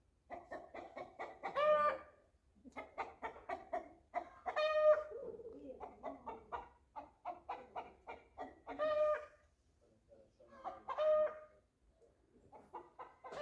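Hen cackling: runs of quick clucks, each building to a longer drawn-out squawk, repeated several times.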